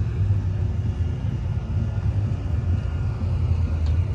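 Engine of a vehicle running with a steady low rumble.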